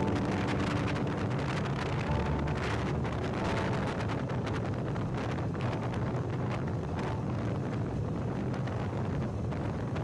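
2004 Hero Honda Splendor Plus's single-cylinder four-stroke engine running steadily while riding at speed, with wind buffeting the microphone.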